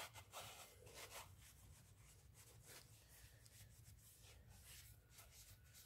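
Faint rubbing of a cloth rag wiping a cleaner-sprayed truck wheel: a few soft swipes, the clearest in about the first second, over near silence.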